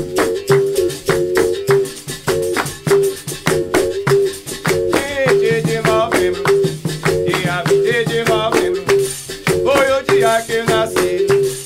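Capoeira roda music: a berimbau alternating between two notes with a caxixi rattle, over steady rhythmic hand clapping. A sung line comes in about five seconds in.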